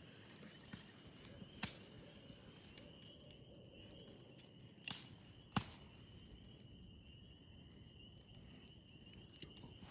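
Faint, steady high trilling of night insects, with a few sharp clicks, three of them louder, about a second and a half, five and five and a half seconds in.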